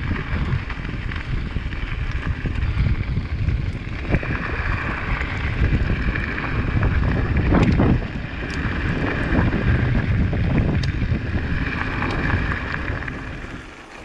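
Wind buffeting the microphone while riding a mountain bike, a continuous low rumble with a few scattered clicks, easing off near the end.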